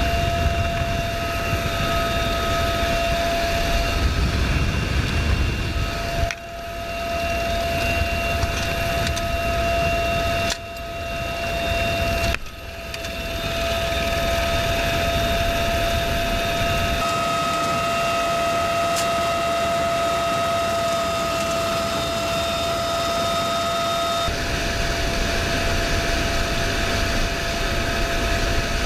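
UH-1Y Venom helicopter heard from inside its open cabin in flight: steady rotor and turbine noise with a high transmission whine. The sound drops out briefly three times in the first half.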